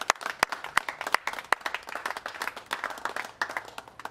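A small crowd clapping, a dense patter of handclaps that thins out near the end.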